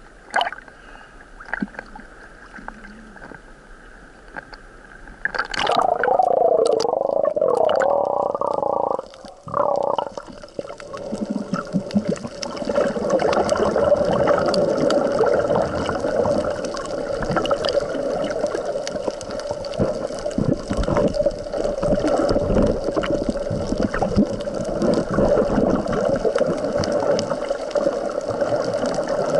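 Choppy sea water lapping and splashing against a camera held at the surface, then the camera goes under about five seconds in and the sound becomes a louder, muffled underwater rushing and crackling of wave surge and stirred-up sand.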